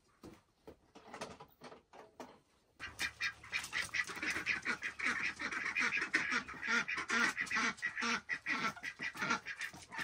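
A few faint knocks of tools being set down on a wooden plank top, then, about three seconds in, a busy chorus of farm poultry calling starts suddenly.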